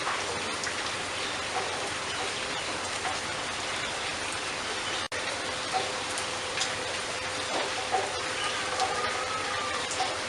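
Faint, scattered bird chirps over a dense, steady hiss that sounds like rain, with a brief dropout about halfway through.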